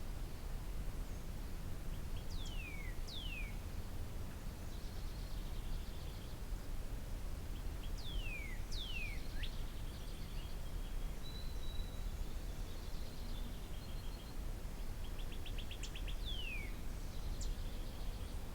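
Wild birds calling over a steady low rumble: clear whistles that slide sharply downward, singly and in a quick run of three around the middle, mixed with short, rapid buzzy trills.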